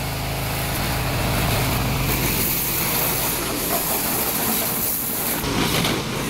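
Honda petrol engine of a pressure washer running steadily while its high-pressure water jet hisses against a motorbike, rinsing off the foam.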